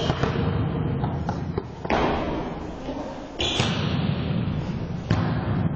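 Volleyball being hit in a gymnasium: three sharp slaps of the ball about a second and a half apart, each echoing in the hall, over the shuffle of players moving on the court.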